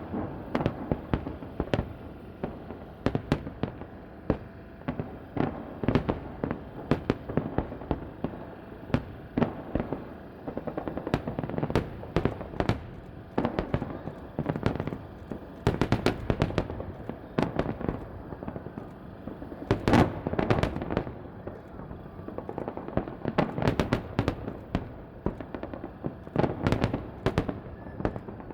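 Fireworks salute exploding in a dense barrage: many sharp bangs in quick succession, in clusters with short lulls, echoing off the surroundings.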